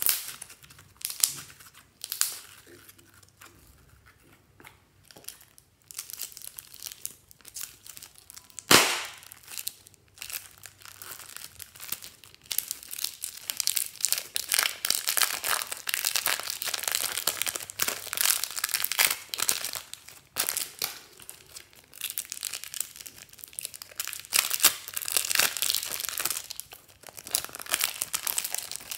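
Slime squeezed out of plastic piping bags and then kneaded by hand, the plastic crinkling and the slime crackling. A few sharp pops come in the first nine seconds, the loudest about nine seconds in, then dense crackling from about twelve seconds on.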